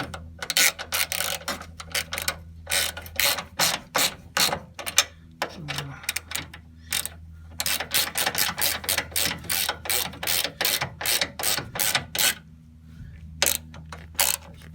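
Hand ratchet wrench clicking in quick runs with short pauses, tightening the nuts back onto the car's front caster plate fitted with spring washers.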